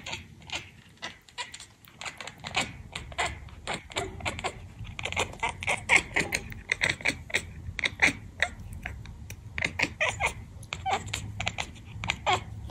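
A British Shorthair cat chattering: rapid runs of short, sharp clicking chirps with its mouth open. The runs are irregular and start sparse, coming thick and fast from about two seconds in.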